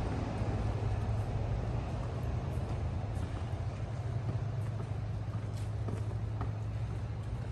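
City street traffic: a steady rumble of passing road vehicles, louder at first and easing off over the first couple of seconds.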